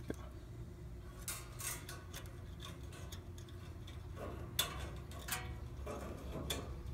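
Scattered light clicks and ticks as a plastic zip tie is worked into a metal wire mesh grille, over a steady low hum.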